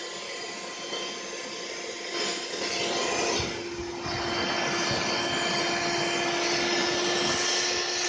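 Vacuum cleaner running, its motor giving a steady whine under the hiss of rushing air; the hiss swells about two seconds in and stays louder, with a brief dip near the middle as the suction changes.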